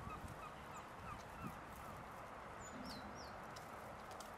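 Faint bird calls: a run of short, repeated honking calls, with two higher falling calls about three seconds in.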